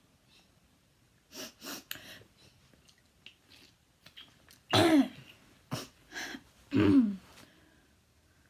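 A person coughing over and over, a chronic habit cough. Two short coughs come about a second and a half in. Two loud, harsh coughs follow near five and seven seconds, with lighter ones between, and the pitch drops within each loud cough.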